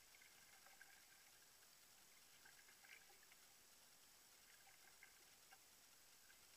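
Near silence: faint water sounds from a canoe being paddled on a calm lake, with a few soft drips and small splashes.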